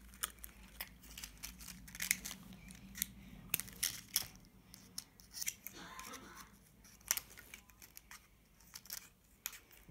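Scissors cutting through toy packaging: a long run of irregular snips, with crinkling and tearing of the packaging, slow going.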